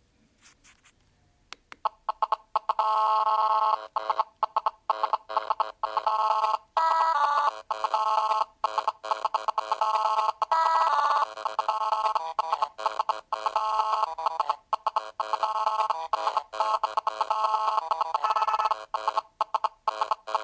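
Energizer Energy E241S mobile phone playing a ringtone: an electronic melody of short, choppy notes that starts just after a click about two seconds in.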